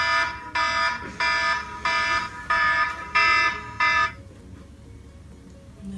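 Smartphone alarm beeping in short, evenly spaced pulses, about one and a half a second, then cut off suddenly about four seconds in as it is switched off.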